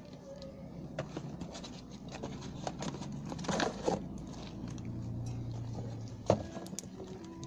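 Light clicks and scrapes of a plastic fuel-filter cartridge being handled, with a low hum for about a second and a half that ends in one sharp knock about six seconds in.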